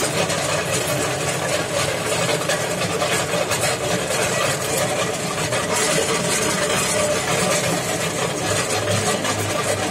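Homemade electric cement mixer running: its motor and gear drive hum steadily while the drum turns and churns wet cement-and-sand mortar.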